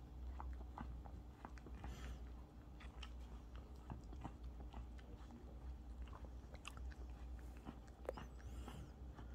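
Small dog chewing: faint, irregular clicks and crunches scattered through, over a steady low hum.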